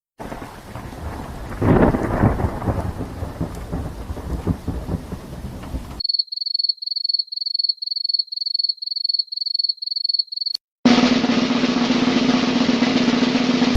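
A run of separate sound effects. First a thunderclap with rain-like noise, loudest about a second and a half in. Then a rapid high-pitched beeping, about three beeps a second, for some four seconds. After a short gap comes a noisy sound over a steady low hum.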